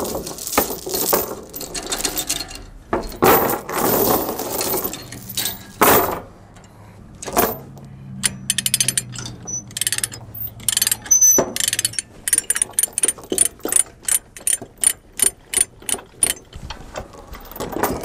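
Steel tie-down chain clanking and rattling on the trailer deck. Then a chain binder is worked in a steady run of ratchet clicks, about two a second, to loosen the chain holding a tractor down.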